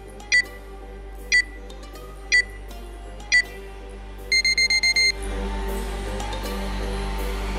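Electronic interval-timer countdown beeps: four high single beeps one second apart, then a quick run of six short beeps about four seconds in, marking the switch to the next exercise interval. Background electronic music plays quietly under the beeps and comes back up louder once they end.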